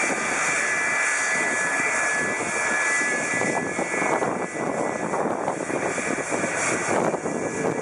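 The twin rear-mounted jet engines of an InselAir MD-80-series airliner run at low power as it taxis and turns onto the runway. It is a steady rushing jet noise with a high whine that eases off somewhat after the first few seconds.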